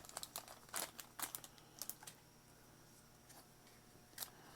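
Faint light clicks and taps of baseball trading cards being handled as they come out of a freshly opened pack, several in the first two seconds, then one more click near the end.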